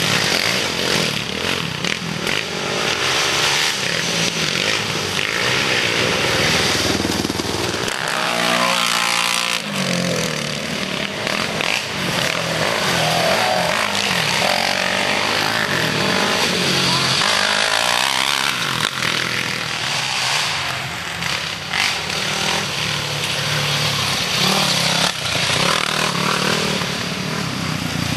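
Off-road racing engines running hard throughout, their pitch rising and falling several times as machines rev past on the trail.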